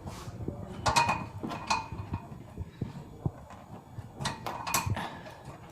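Metal clicks and clinks of a bolt being fitted and tightened into the back of a treadmill's display mount, with a few sharp ringing clinks about a second in and again around four to five seconds in.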